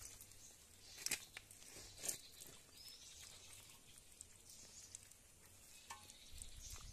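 Near silence with a few faint wet ticks and pats from small stranded fish being gathered by hand off wet mud, the clearest two about one and two seconds in.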